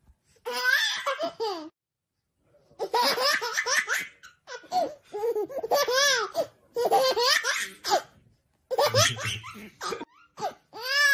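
A baby laughing in four bouts of high laughter that rises and falls in pitch, with short pauses between.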